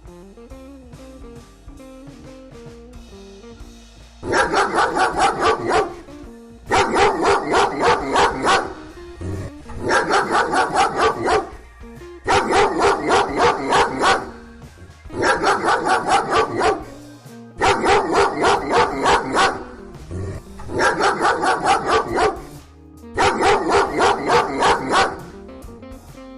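A dog barking in quick runs of yaps, eight bouts of rapid barks starting about four seconds in, over soft background music.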